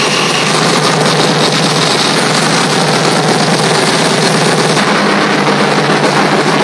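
Loud electronic dance music from a DJ set over an arena sound system, here a dense, noisy, unbroken stretch with little clear melody, heard through a phone's microphone.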